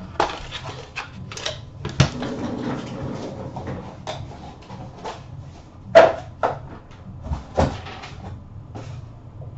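A small cardboard box being opened and trading cards handled: a run of sharp clicks and knocks with some rustling, the loudest knock about six seconds in.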